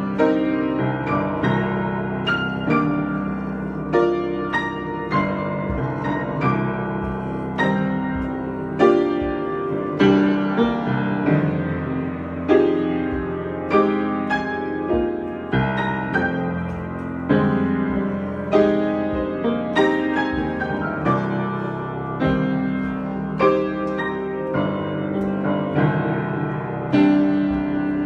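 Solo piano playing an improvised piece: chords and melody notes struck one after another, each ringing and fading, with a stronger accent every second or so.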